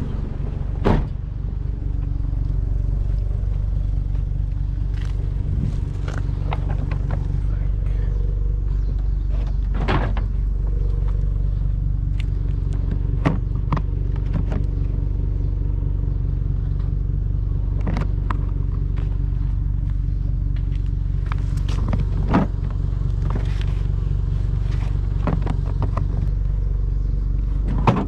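Pickup truck engine running steadily at low revs, with scattered short knocks and clatter of things being handled.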